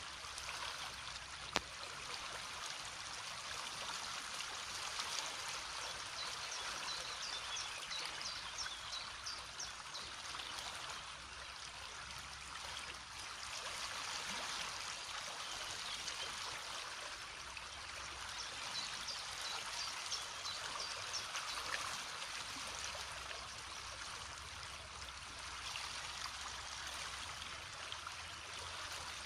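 A river rushing steadily, with birds chirping now and then in short high notes, and a single sharp click about a second and a half in.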